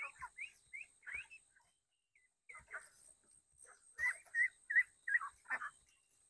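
A flock of domestic ducks calling, with short, high calls in scattered runs and a brief lull partway through.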